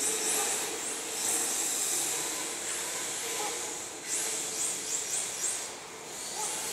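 Electric RC drift cars' brushless motors whining in repeated short rising sweeps as the throttle is blipped, over a steady hiss of tyres sliding on concrete.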